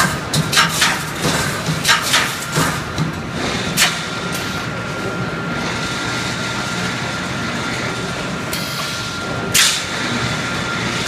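Automatic wire mesh welding machine at work: a quick, irregular series of sharp clacks from its welding strokes over the first four seconds, then steady machine noise with a thin steady whine while the mesh is carried forward, and one more sharp clack near the end.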